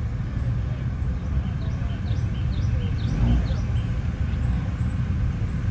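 Outdoor ambience: a steady low rumble with faint distant voices. About a second and a half in, a bird gives a quick run of about a dozen short chirps lasting under two seconds, over a faint high tick repeating about twice a second.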